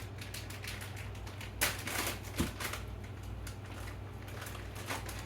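Rustling and crinkling as a tortilla is taken from its plastic package, with a louder rustle about one and a half seconds in and a soft knock just after.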